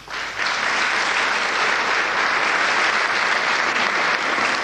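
Large audience applauding. The clapping breaks out just as the music stops and then holds steady.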